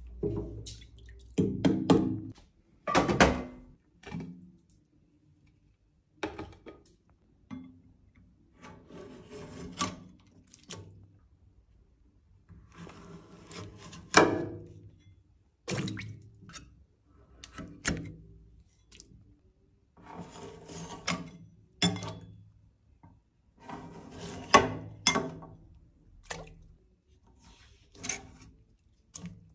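Metal paint scraper scraping thick, hardened candle wax off a wax-caked vat rim in repeated strokes, roughly one every one to two seconds. Each stroke ends in sharp knocks and crunches as slabs of wax break away.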